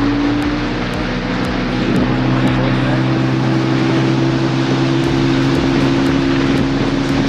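Motorboat engine running steadily under way, its hum shifting slightly higher about two seconds in, with a rushing noise of water and wind over it.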